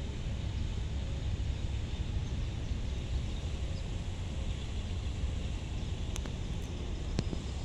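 Outdoor background noise: a steady low rumble under a hiss, with two faint clicks near the end.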